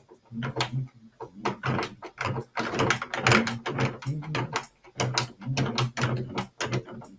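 A man's voice talking steadily.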